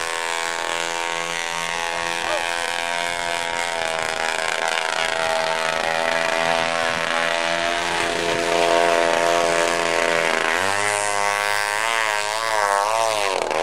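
25cc two-stroke gas engine of a radio-controlled model boat running at speed, a steady high buzzing drone. Near the end its pitch swings up and down several times.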